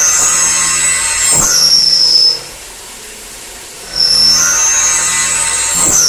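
10 mm solid carbide end mill at 2500 rpm cutting 304 stainless steel in a Hurco VMX60t CNC machining centre under flood coolant. It gives a loud, high-pitched cutting squeal that steps up in pitch, drops away to a quieter steady spindle and coolant sound after about two seconds, then starts again about four seconds in as the cutter re-engages.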